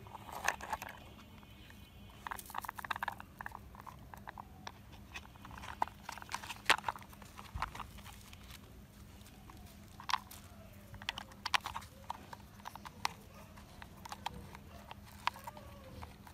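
Hard plastic toy parts clicking, knocking and rattling irregularly as they are handled and fitted together by hand.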